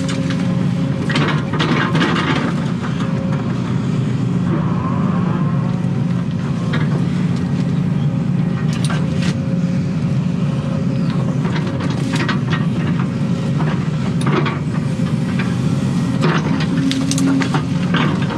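Excavator's diesel engine running steadily, heard from inside the cab, with the hydraulics working and scattered knocks and scrapes as the bucket and thumb dig a stump and roots out of the soil.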